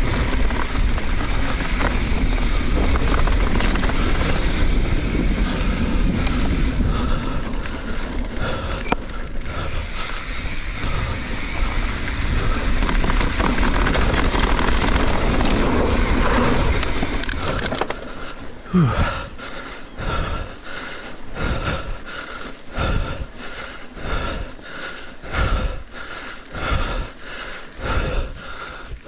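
Mountain bike riding a dirt jump trail, heard from an on-bike action camera: dense wind and tyre noise with chain and frame rattle. About two-thirds of the way in it eases into quieter, rhythmic pulses, roughly two a second.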